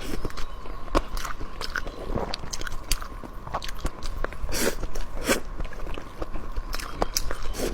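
A person chewing and biting food, with many irregular crisp crunches and mouth clicks.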